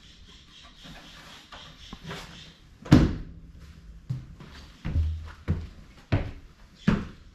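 A series of heavy knocks and thuds on wooden framing: one loud thud about three seconds in, then four more irregularly spaced over the next four seconds.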